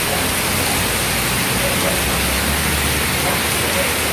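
Heavy tropical rain pouring down steadily onto the road, pavement and stall roof: an even, unbroken hiss of rain.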